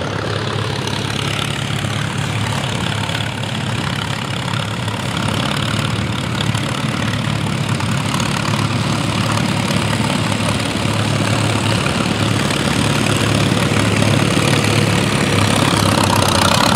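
Vintage farm tractor engine running steadily at low speed, getting slowly louder toward the end.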